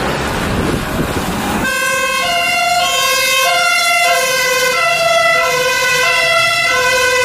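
A German fire engine's two-tone siren sounds, alternating between a low note and a high note. It starts about two seconds in, after a loud rushing noise.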